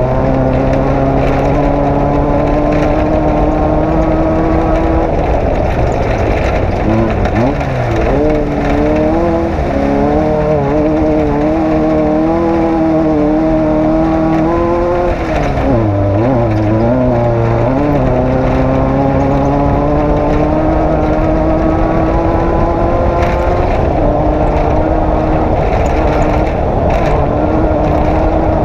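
Off-road race vehicle's engine running hard. Its note climbs slowly, dips and wavers twice, about a quarter of the way in and again just past the middle, then climbs steadily again.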